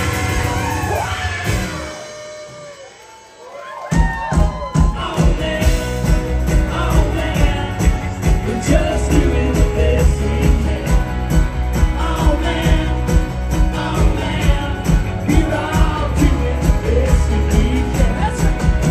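Live rock band playing with singing, on electric bass, guitars and drums. About two seconds in the band drops out to a quiet break with only a few voices. Near four seconds the full band comes back in on a steady beat.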